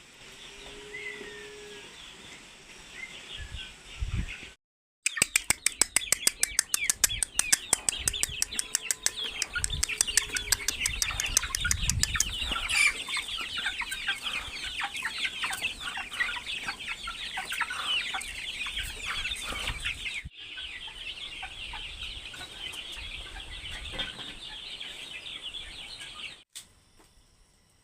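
Chickens clucking and calling, a dense chatter of short calls, broken by abrupt cuts in the audio.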